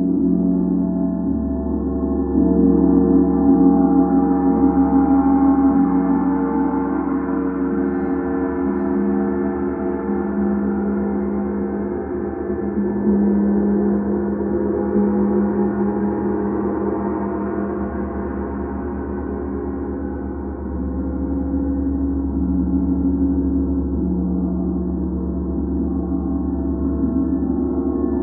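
Large hanging gong played continuously as a sound bath: a dense, sustained ringing wash that swells and ebbs slowly, building about three times over the stretch.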